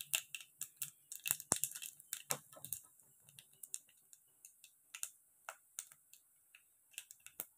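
Small, sharp crackles and pops of dal, black peppercorns and seasoning frying in a little hot oil for a tempering. The pops come thick for the first few seconds, then thin out to occasional ones.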